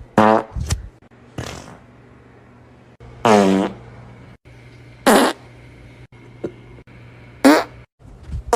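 A string of about six short farts, some with a clear pitch. The longest and loudest comes about three seconds in.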